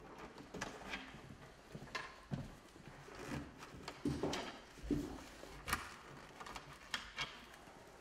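Scattered knocks, clicks and scrapes of wood as the frame of a wooden observation beehive is handled with gloved hands, about a dozen irregular strikes with no steady rhythm.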